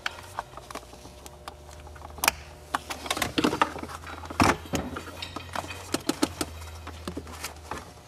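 Small screwdriver working on the metal compression clamp of a shift boot: irregular light clicks, taps and scrapes of metal and plastic, with a couple of sharper clicks, over a steady low hum.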